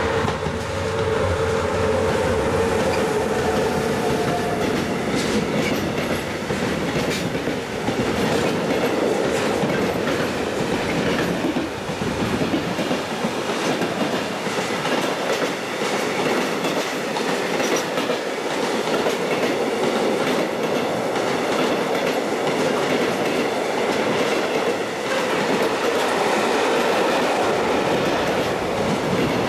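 Electric freight train passing close by: the electric locomotives go past with a steady tone in the first few seconds, then a long string of intermodal container and tank wagons rolls by with a continuous rumble and the clickety-clack of wheels over the rail joints.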